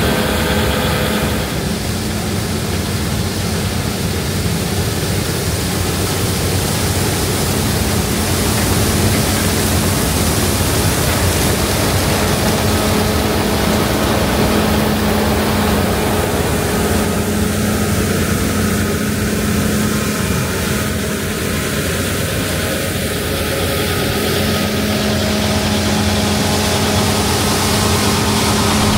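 Claas Lexion 8900 combine harvester running steadily while harvesting: a constant low engine hum under a broad rushing machine noise.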